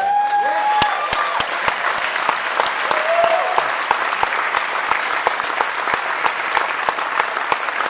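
Large audience clapping, with a few voices cheering and whooping in the first few seconds.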